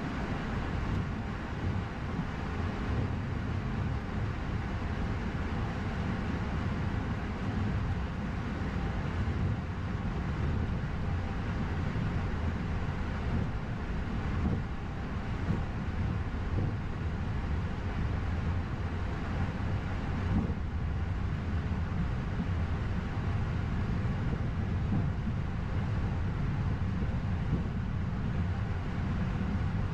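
Steady low rumble and air rush of an Airbus A220-100 flight deck on the ground, the aircraft's running engines and air systems, with no distinct events.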